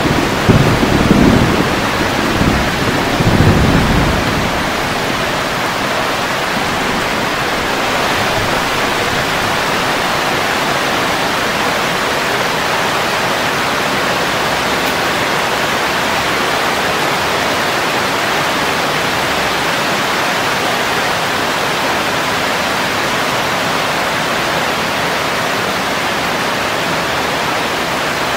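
Heavy rain falling steadily on garden foliage, a dense even hiss. A low thunder rumble fades out about four seconds in.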